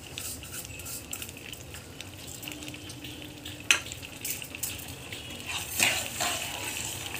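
Ghee, milk and sugar sizzling in a nonstick pan over the heat, with one sharp knock about halfway through. Near the end a steel spatula starts stirring, scraping across the pan bottom as the sugar is mixed in.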